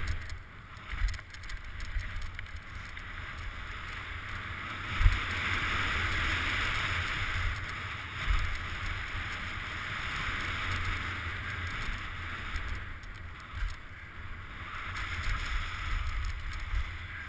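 Wind rushing over a helmet-mounted camera's microphone together with the rumble of mountain bike tyres on a dirt downhill trail, with a few knocks from bumps, the sharpest about five seconds in.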